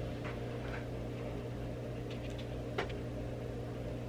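Steady low background hum, like a running machine or mains-powered equipment, with a single light click about three seconds in.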